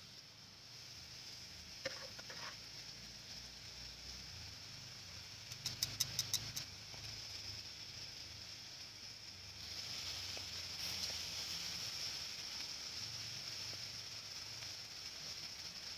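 Pork intestines sizzling on a wire grill over charcoal, a steady high hiss that grows louder about ten seconds in. A quick run of about six sharp clicks comes about six seconds in.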